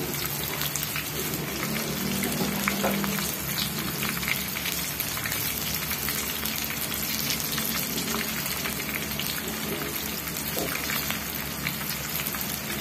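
Breaded chicken pieces frying in hot oil in a wok: a steady sizzle with many small crackles and pops from the bubbling oil.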